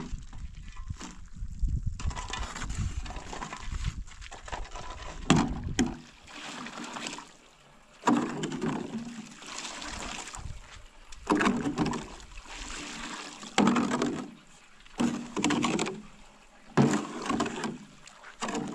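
Two shovels turning wet cement mix in a metal wheelbarrow: wet scraping and sloshing, with a sharper scrape or slap every two to three seconds as the blades dig in and flip the mix.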